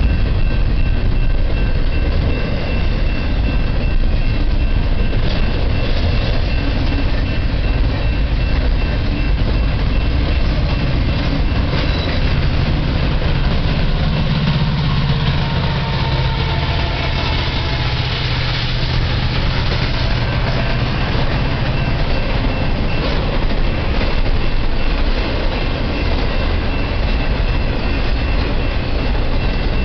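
Intermodal freight train rolling by at close range: a steady rumble and clatter of the double-stack container cars and trailer flatcars on the rails. About halfway through, a mid-train diesel locomotive passes, adding a low engine drone for several seconds.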